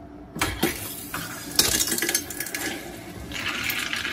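Water rushing and hissing through the plumbing as the house-line valve is opened and the pressure tank pushes water out to refill the house pipes. It starts suddenly about half a second in, is loudest around two seconds in, then settles into a steady hiss.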